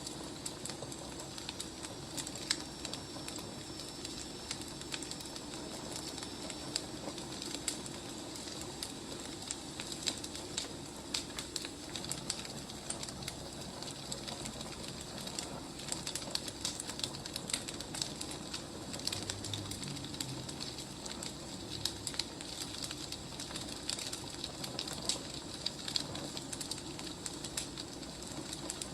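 Wood fire crackling: frequent small, irregular pops over a steady low hiss.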